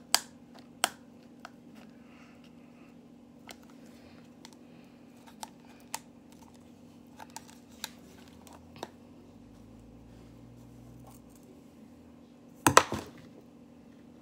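Scattered clicks and taps of a small plastic loose-powder container being handled and pried at, with a louder burst of clattering and rustling near the end.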